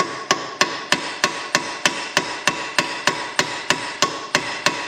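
Small hammer tapping steadily and slowly on the steel steering knuckle of a Porsche 911 (996) front suspension, about three to four strikes a second, each with a short metallic ring, driving the rust-stuck knuckle loose from the strut.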